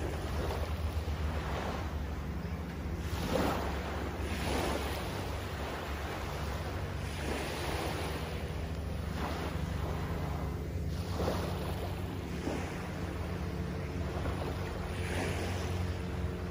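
Small waves lapping and washing up onto a sandy beach in irregular swells every second or two, over a steady low rumble of wind on the microphone.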